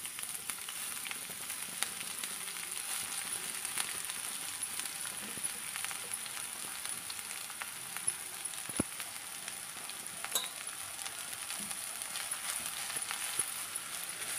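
Ridge gourd peels sizzling in hot oil in a kadai: a steady hiss with scattered crackles.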